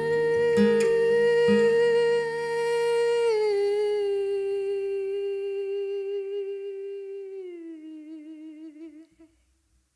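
A woman's voice holds the song's closing note, then steps down to a lower note, and then lower again, wavering with vibrato before fading out about nine seconds in. A few low acoustic guitar notes ring under it in the first two seconds.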